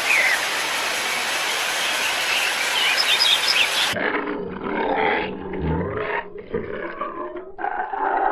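A steady rushing noise with a few bird chirps, then after an abrupt cut about four seconds in, a tiger roaring in low, rough calls.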